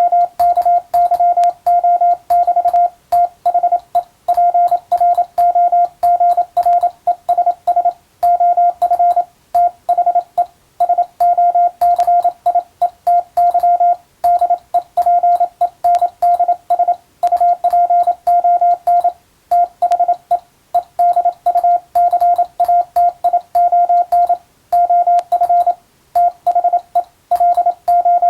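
Morse code (CW) tone of about 700 Hz keyed on and off in rapid dots and dashes, with short pauses between groups: English-text telegram practice for code reception.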